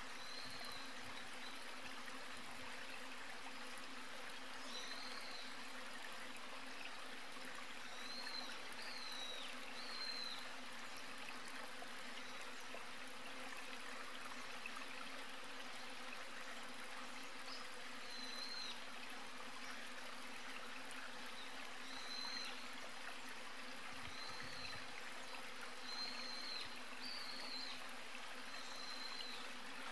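Outdoor ambience: a steady hiss with a faint low hum underneath, and short high chirps every few seconds.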